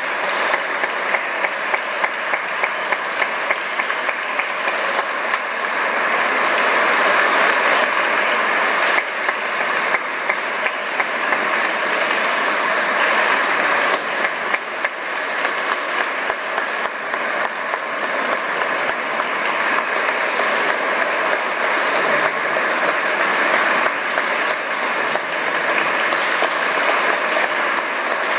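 Audience applauding steadily. For stretches, one nearby person's claps stand out loud and evenly paced, about three a second.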